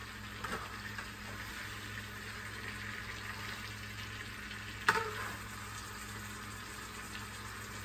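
Breaded chicken cordon bleu sizzling steadily as it fries in a skillet of hot oil, with a single short click about five seconds in.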